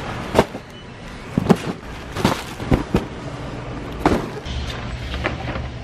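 A run of irregular sharp knocks and thuds, about eight in all, from a wire shopping cart being loaded with cardboard snack boxes and pushed along, its metal frame rattling.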